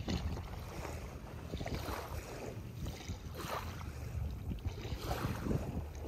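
Small waves lapping at the edge of a calm bay, soft irregular washes over a low rumble of wind on the microphone.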